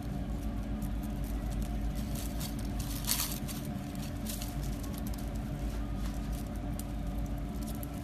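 Pet rabbits chewing leaves and stems pulled from a pot, a rapid, irregular crunching and rustling close up, with a louder crunch about three seconds in. A steady low hum runs underneath.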